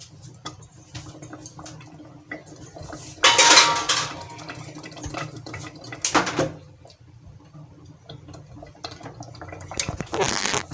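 Metal spoon stirring and scraping masala in a cooking pot, with many small clinks and louder clattering of metal utensils about three, six and ten seconds in, the first with a brief ringing.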